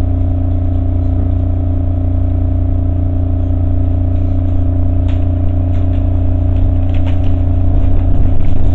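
Inside a SEPTA Market–Frankford Line subway car at a station: a steady electrical hum from the car's equipment, with clicks and clatter becoming more frequent and the sound growing louder toward the end as the train starts to pull away.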